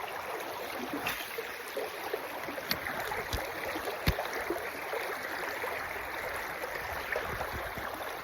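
Small creek's water running with a steady rush, with a few sharp knocks over the first half.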